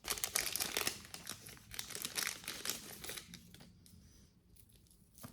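Plastic packaging crinkling as it is handled, busy for about three seconds and then dying down to a few faint rustles.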